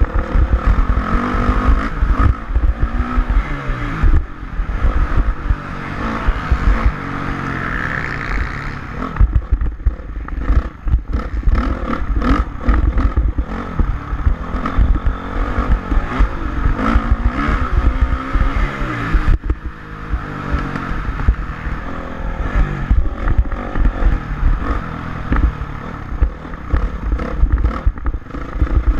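Honda CRF450R's single-cylinder four-stroke engine revving up and down repeatedly while riding, under heavy wind buffeting on the microphone and clattering of the bike.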